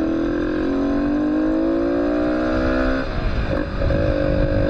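Motorcycle engine accelerating, its pitch rising steadily, then dropping off suddenly about three seconds in, as at a gear change or when the throttle is eased, over a low rumble of wind and road noise.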